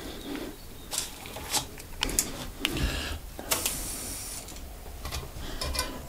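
Scattered small clicks, taps and rattles of hand work at a tubeless bike wheel's valve after sealant has been injected, with a short hissing noise about three and a half seconds in.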